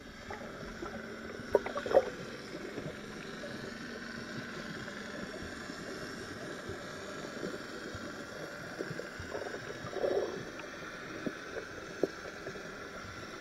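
Muffled underwater ambience picked up by a camera in its waterproof housing: a steady hiss of water, broken by a few short knocks and clicks, the loudest about two seconds in and around ten seconds in.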